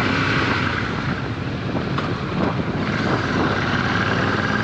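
Steady wind buffeting on a GoPro microphone while riding a Royal Enfield Super Meteor 650. Its 648 cc parallel-twin engine runs underneath with the exhaust baffle removed.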